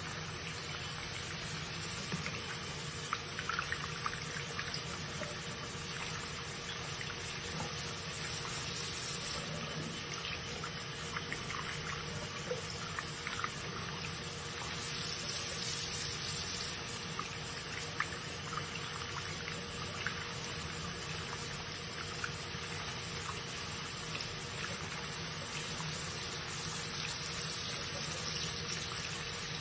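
Bathroom tap running steadily into a small plastic dipper full of water in the basin, with occasional small splashes.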